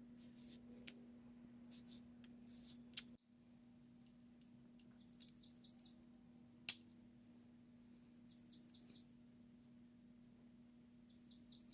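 Faint strokes of abrasive paper rubbing over a small steel plane cutter, four short hissy passes. After a cut, a songbird outside gives three short high trills a few seconds apart, with a single sharp metallic click between the first two as plane parts are fitted.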